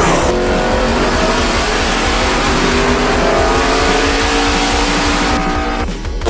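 NASCAR stock car V8 engines running at high revs, their pitch gliding slowly up and down; the sound eases off shortly before the end.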